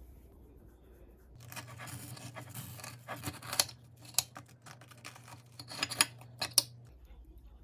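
Close handling noise: rustling and scraping, like packaging being torn or cut, with several sharp clicks, starting about a second in and stopping near the end.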